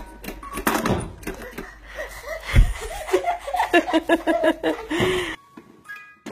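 A jack-in-the-box thumps open about two and a half seconds in, and a toddler answers with a quick, even run of laughing syllables. The sound cuts off abruptly near the end.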